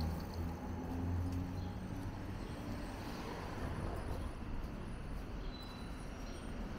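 City street traffic: a steady low rumble of vehicle engines, with an engine tone audible in the first couple of seconds.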